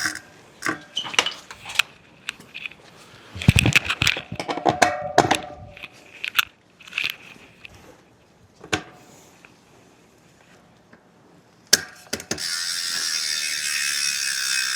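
Bike parts and tools being handled: scattered metallic clicks and clinks, with a loud knock about three and a half seconds in that is followed by brief metallic ringing. About two and a half seconds before the end a steady, high hissing whir begins.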